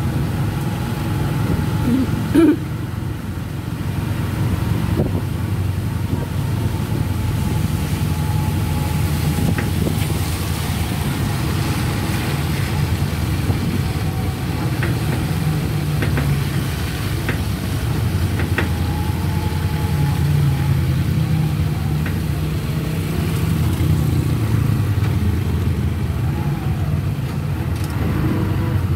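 Steady engine and road rumble of a moving vehicle, heard from inside it, with a few faint clicks along the way.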